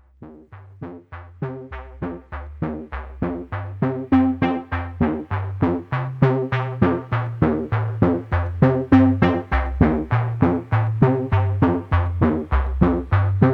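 Background music: an electronic track with a steady beat of about three notes a second over a bass line, fading in over the first few seconds.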